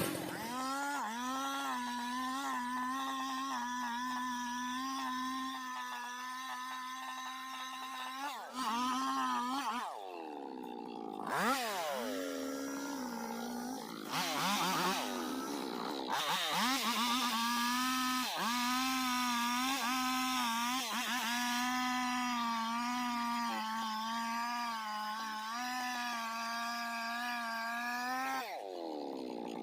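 Two-stroke chainsaw running at high revs with a steady, slightly wavering pitch, dipping and recovering several times around the middle.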